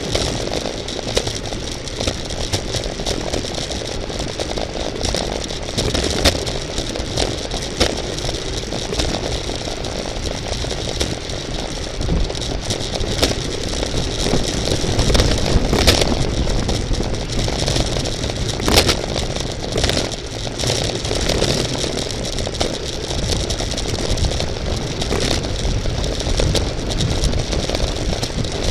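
Wind rushing over the microphone of a bike-mounted camera, with the frame and parts of a road bicycle rattling and clicking over the road surface at race speed.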